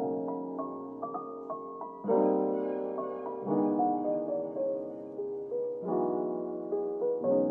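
Soft background piano music: gentle chords struck about every two seconds, with a short melody of single notes above them.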